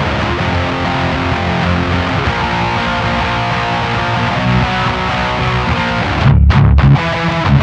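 Distorted electric guitar riff from an Ibanez RG8 eight-string with EMG pickups, played through a Diezel VH4 tube amplifier's gain channel fitted with an RCA black-plate 12AX7 preamp tube and GT-EL34M power tubes. About six seconds in it turns to loud low chugs with sudden stops between them.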